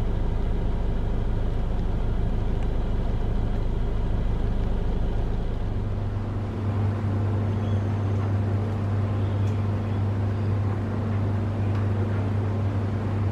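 Distant Boeing 787-8 jet engines rumbling steadily as the airliner climbs away after takeoff. About six seconds in a steady low hum joins and holds.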